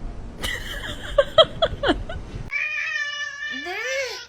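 A cat yowling: a few short cries, then about halfway through a long drawn-out yowl whose pitch wavers, dips and rises again.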